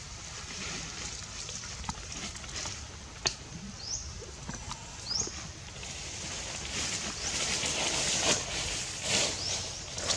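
Outdoor animal sounds: two short, high, rising chirps near the middle, a few sharp knocks, and louder rustling noise in the second half.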